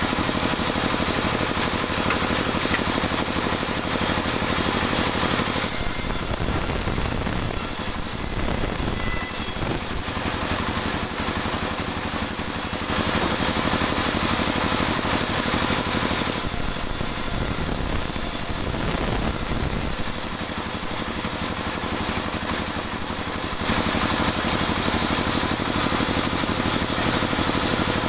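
Band sawmill running and sawing dry teak offcuts into 2 cm boards. The sound shifts back and forth between two states every few seconds as the wood is fed past the blade.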